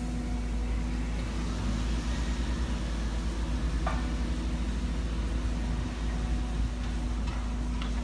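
Demolition excavator's diesel engine and hydraulics running steadily as its crusher arm swings, with one short knock about four seconds in.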